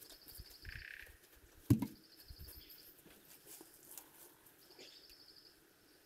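Outdoor ambience of birds calling: a high, rapid trill repeated every couple of seconds, with a short lower call about a second in. A single sharp click is heard just under two seconds in.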